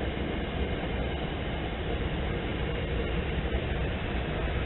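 Passenger train rolling past, a steady low noise of the coaches moving along the track.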